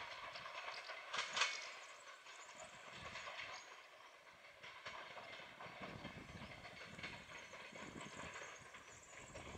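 Vintage passenger coaches of a receding train rolling over rail joints and points: a faint, irregular clatter of wheels on track, with one louder clack about a second and a half in.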